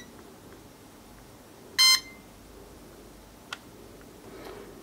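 JDRC JD-20S toy drone's remote controller giving one short electronic beep about two seconds in as it is switched on, followed by a faint click.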